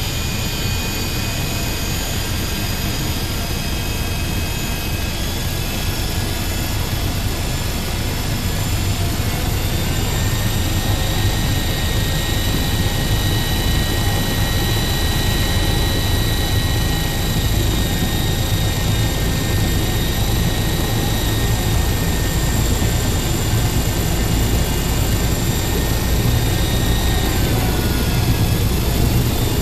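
Esky CP V2 electric RC helicopter running on the ground with its main rotor spinning: a steady high motor and gear whine over rotor noise. It grows a little louder about a third of the way in, and the pitch dips briefly near the end.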